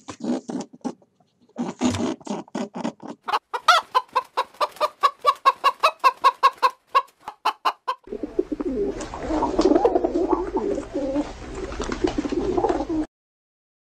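Chickens clucking: short clucks at first, then a fast, even run of clucks, then from about eight seconds in a denser, noisier stretch of calls over a low hum, ending abruptly.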